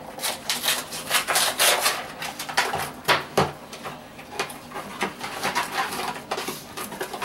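Cardboard gift box being opened by hand: a run of short tearing, scraping and rustling noises as the flap is pulled open.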